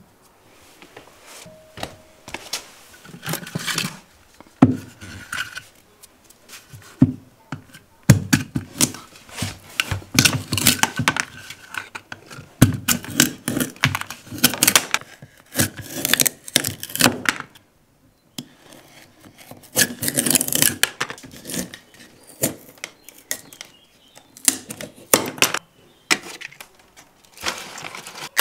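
Hands-on cooking work: irregular knocks, clatters and scrapes of kitchenware being handled, with a short pause about two-thirds of the way through.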